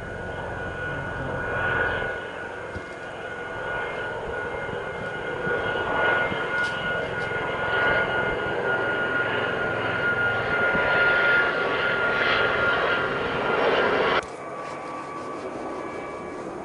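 An engine's steady whine over a rushing noise that swells and eases. About 14 seconds in it cuts off abruptly to a fainter, lower whine.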